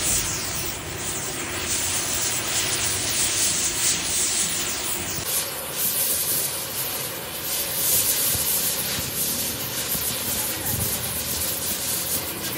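Gas welding torch flame running with a steady, even rushing noise while filler rod is melted into a break in a tractor engine block.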